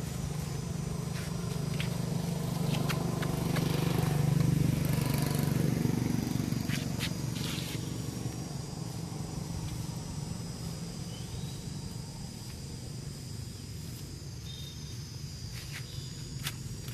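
Motorbike engine running, swelling to its loudest about four seconds in and then slowly fading, with a few light taps and clicks.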